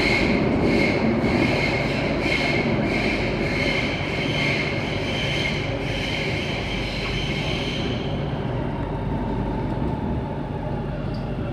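SMRT C830C Circle Line train running, heard from inside the carriage: a steady rumble with a high wheel squeal that pulses two or three times a second. The squeal dies away about eight seconds in, leaving the rumble and a fainter whine.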